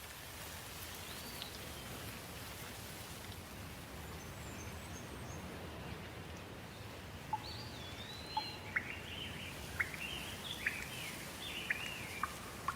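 Steady rain hiss with a songbird calling over it: a faint whistle early, then, about halfway through, a run of sharp chirps and short whistled phrases that grows busier toward the end.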